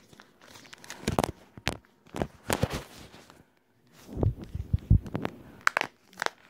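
Handling noise from a smartphone being fumbled with close to the microphone: irregular clicks, taps and rustles, with a cluster of low thumps about four to five seconds in and a few sharp clicks near the end.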